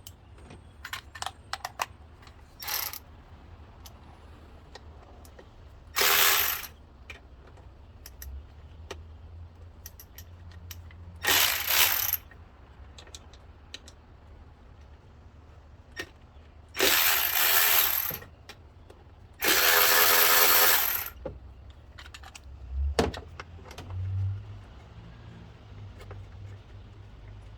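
A hand ratchet with an 8 mm socket clicking in about five bursts, the later ones one to one and a half seconds long, as the four bolts holding a throttle body are backed out. Light metallic clicks and taps come between the bursts.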